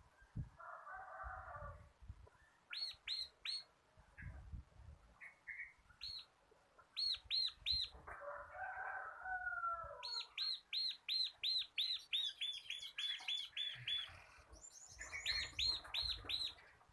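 Bar-winged prinia (ciblek) singing: bursts of sharp, quickly repeated rising-and-falling chirps, several a second, in the fast rattling run of song called ngebren. A lower buzzy call comes in at the start and again about halfway, with soft low thuds between some bursts.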